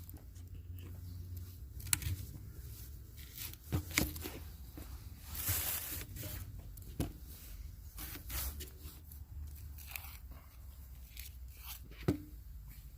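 Scattered sharp clicks and light knocks of things being handled, with a brief rustle about five and a half seconds in, over a low steady rumble.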